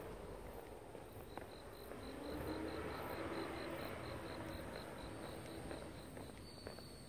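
Night insects chirping: one insect repeats a high-pitched pulse about five times a second, over a steady faint hiss of insects, with a faint low drone swelling in the middle.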